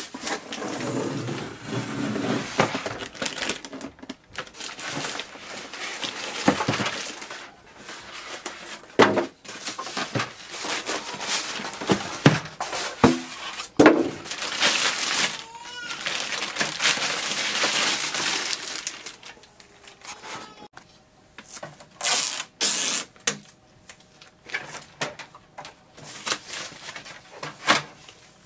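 Unpacking: cardboard box flaps and packing scraping and rustling, then plastic wrapping and a foam sheet crinkling and rustling as they are pulled off a printer, with many scattered knocks and clicks.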